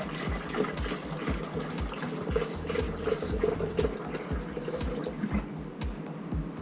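A quart of Flow-Aide biodegradable descaler being poured from its jug into a bucket holding a gallon of water, a steady pouring and splashing of liquid.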